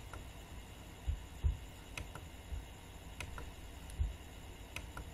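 Computer mouse clicking, a handful of light clicks coming singly and in quick pairs, with a few soft low thumps between them.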